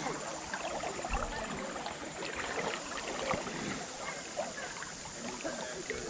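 Shallow river water running over a riffle, a steady burble and trickle of moving current.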